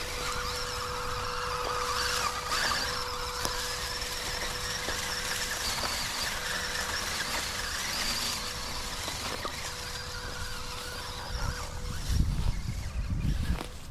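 Electric motor and gears of an MN82S Toyota Land Cruiser RC crawler whining as it drives, the pitch wavering with throttle. A louder low rumbling comes in near the end.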